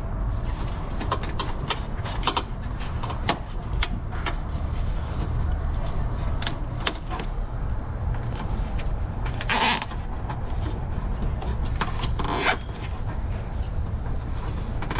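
Clicks, taps and rustles of a wire being pushed and routed by gloved hands in a pickup's engine bay, with two louder scrapes a little after halfway, over a steady low rumble.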